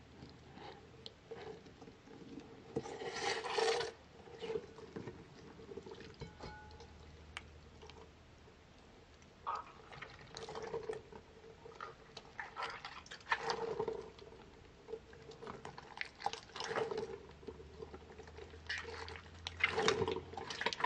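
A soft rubber squishy toy packed with water beads being squeezed by hand, giving wet squelching and the patter of beads spilling into a glass bowl, in irregular bursts.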